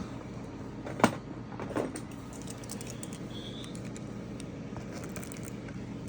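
Cardboard box being handled: a sharp knock about a second in and a softer scrape just after, over a steady low hum.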